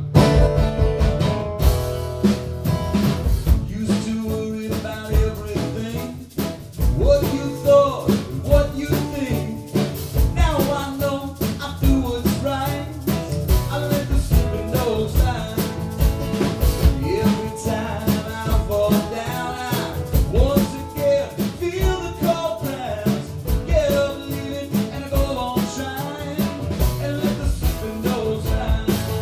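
Live band playing a song on acoustic guitars and drum kit, with a man's lead vocal coming in about seven seconds in.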